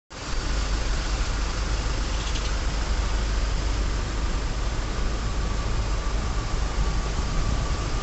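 Steady rain falling on a flooded courtyard, a constant hiss with a low steady rumble beneath it.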